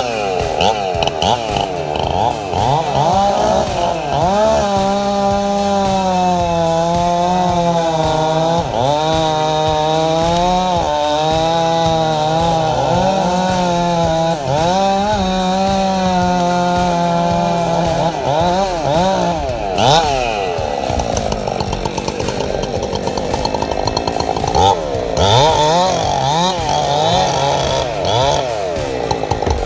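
Chainsaw running and cutting, its engine pitch dipping and recovering again and again as the chain bites under load. The pitch holds fairly steady for a long stretch in the middle, with quicker revs up and down before and after it.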